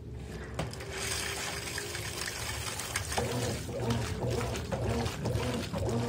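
Consul CWE13AB top-load washing machine in wash agitation: water and suds sloshing and swishing around the load of towels. From about three seconds in a motor hum rises and falls with each back-and-forth stroke of the agitator, about two strokes a second.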